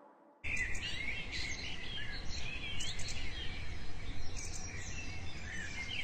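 Several birds chirping and calling in quick, overlapping phrases, starting about half a second in, over a low steady rumble of outdoor background noise.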